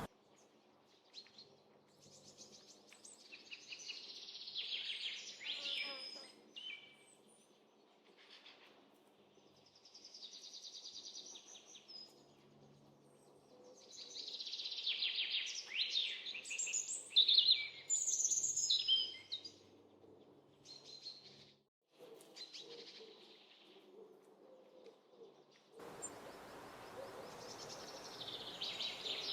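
Small songbirds chirping and twittering in bursts of high, quick notes, loudest about halfway through. Near the end a steady background hiss of outdoor ambience comes in under the calls.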